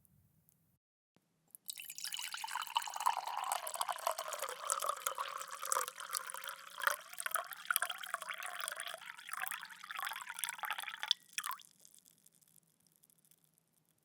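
Water poured in a steady stream into a glass, filling it. It starts about two seconds in and stops abruptly near the end, followed by a few last drips.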